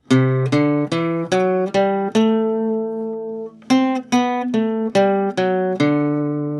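Guitar playing a slow breathing melody: a phrase of plucked single notes rising to a held note, then a second phrase falling to another held note.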